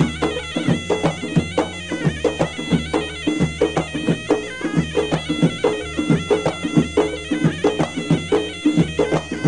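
Folk dance music: a reedy, bagpipe-like wind melody over a steady drum beat.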